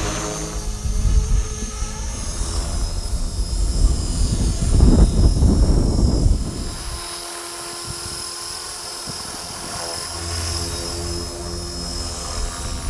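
Electric ALIGN T-REX 450 PRO V2 RC helicopter in flight, its motor and rotor whine holding steady. Strong wind buffets the microphone with a low rumble through the first half, easing about halfway through.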